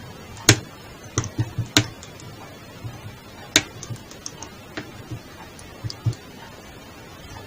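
Slime being played with by hand, giving sharp, irregular pops and clicks, the loudest about half a second in, with a cluster of them between one and two seconds.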